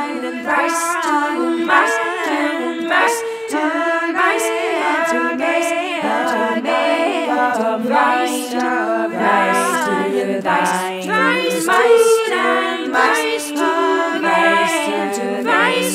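Several women's voices singing a cappella in layered, overlapping harmony, sliding between notes with no instruments.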